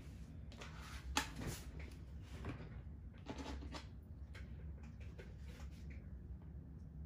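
Handling noises on a craft table: a sharp knock about a second in, then rustling and light clicks. A steady low hum runs underneath.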